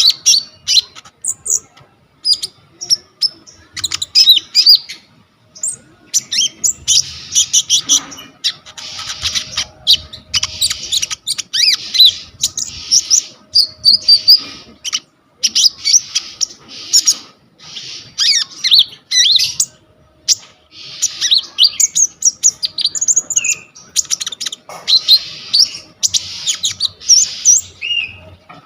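Konin songbird singing a fast, varied chattering song of quick high chirps and trills, packed with mimicked phrases of other birds' calls ("full isian").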